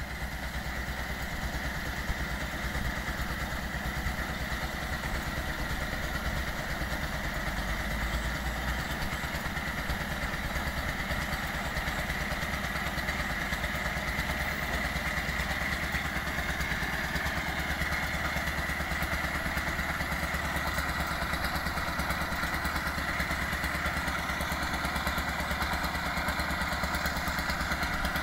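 Small engine of a wooden river ferry running steadily as the boat motors across the water.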